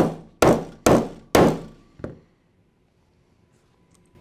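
Hammer striking steel Flexco R2 belt fastener plates on the R2T applicator tool, presetting the plates into the belt end: four sharp blows about two a second, then a lighter tap about two seconds in.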